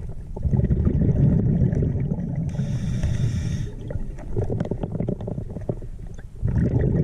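Scuba diver breathing underwater through a regulator: exhaled bubbles gurgling and rumbling, with a hissing inhale lasting about a second near the middle.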